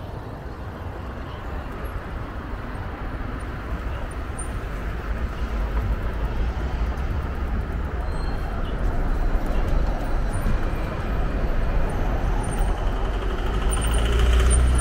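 City street traffic heard from a bicycle riding along the road: a steady wash of passing vehicles with a low rumble, growing gradually louder and loudest near the end.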